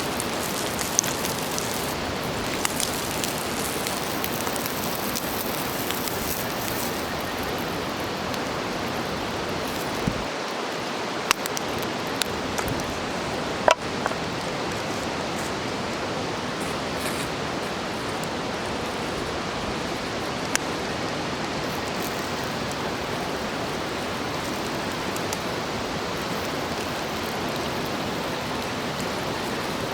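Steady sizzling hiss of food frying on an iron griddle plate over a campfire, with a few sharp pops scattered through it, the loudest about fourteen seconds in.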